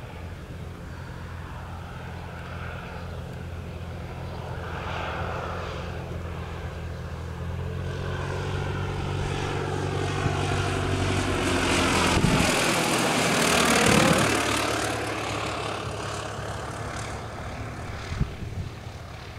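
Engine and propeller of a high-wing single-engine light aircraft passing low overhead. The steady drone grows louder as it approaches and peaks about twelve to fourteen seconds in, with the pitch dropping as it goes by, then fades away.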